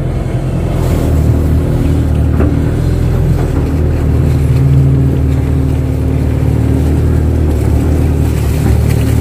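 Kato crawler excavator's diesel engine running steadily under working load, with a low, even hum that gets a little louder about halfway through.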